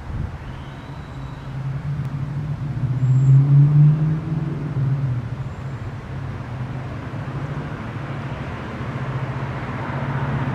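Motor vehicle traffic driving past on the street, with a low engine hum that swells to its loudest about three to four seconds in and then eases. Road noise builds again near the end.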